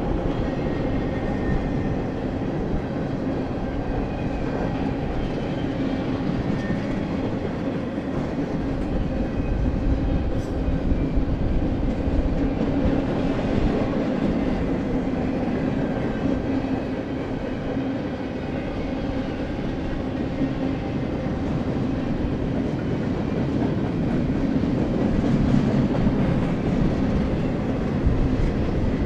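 A double-stack container train's well cars rolling past: a steady rumble of steel wheels on the rails with rhythmic clacking as the trucks pass, swelling and easing slightly as the cars go by.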